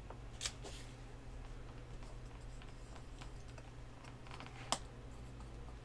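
Light ticks and taps of metal tweezers on a small circuit board and its parts, with two sharper clicks about half a second in and near the end, over a low steady hum.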